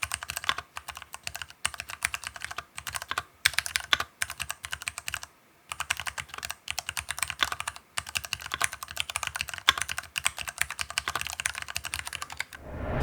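Fast typing on an aluminium-cased mechanical keyboard with lubed Cherry MX Brown switches: a dense run of key clicks and keycap bottom-outs, broken by brief pauses about five and eight seconds in.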